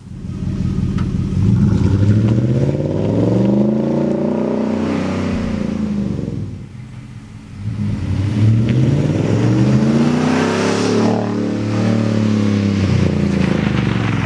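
2012 Ford Raptor's 6.2-litre V8 running through a Roush cat-back exhaust and revved twice, each rev rising for about three seconds and then falling back toward idle.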